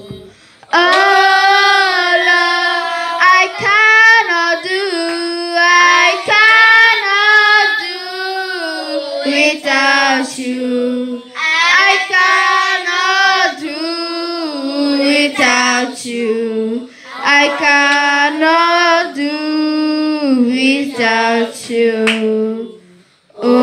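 A girl singing into a handheld microphone, in long held, gliding phrases, with a brief break just after the start and another near the end.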